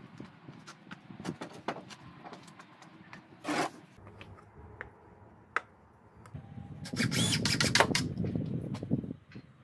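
Knocks and clicks of wood being handled, then, about seven seconds in, a power drill boring into a pine armrest for a couple of seconds with a rough, grinding noise.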